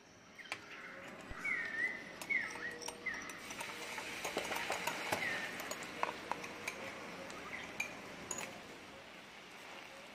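Cornstarch-and-water mixture hitting hot caramel in a non-stick frying pan, sizzling and bubbling. The sizzle builds a few seconds in and is strongest around the middle. A silicone whisk clicks and taps against the pan, and there are a few short high chirps early on.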